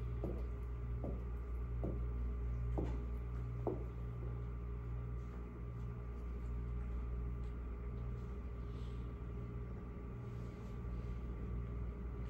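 Steady low machine hum, with a string of short squeaks about one a second in the first four seconds.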